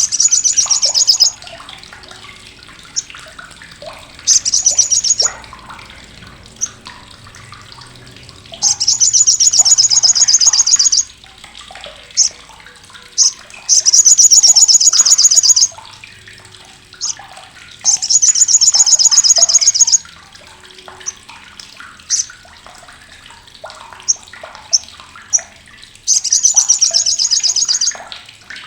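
Olive-backed sunbird (sriganti) giving its loud, harsh, sharp 'crecetan' chatter: six fast, high-pitched rattles of one to two seconds each, with short sharp chips between them.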